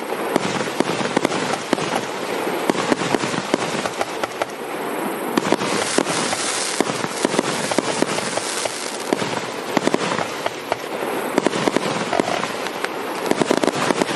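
9-inch, 138-shot firework cake firing a rapid, dense string of shots, with a burst of hissing about six seconds in.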